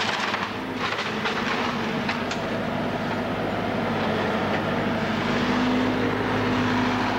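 An engine running steadily, with a few short sharp knocks or cracks in the first couple of seconds.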